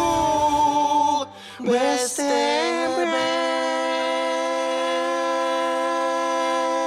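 The ending of a slow, sad song: a sung note held for about a second, a short break and a brief gliding phrase, then one long steady final note held to the end.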